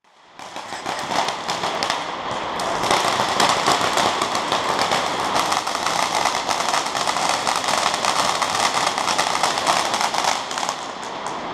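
Ground fountain firework spraying sparks: a dense, continuous crackling hiss that builds up over the first couple of seconds, holds steady, and thins out near the end, echoing inside a concrete cooling tower.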